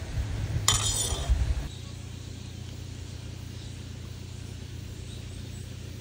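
A spoon clinks against a ceramic bowl of stew and noodles, with a short ringing, about a second in; after that only a steady low hum.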